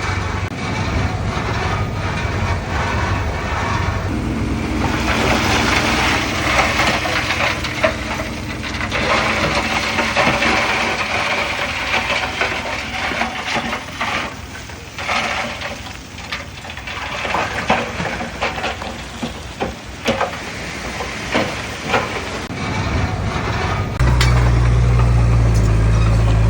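Heavy diesel earthmoving machinery working: engine running under a changing load, with a long stretch of scraping, rushing noise and then scattered clanks and knocks. Near the end a louder, steady low engine drone begins abruptly.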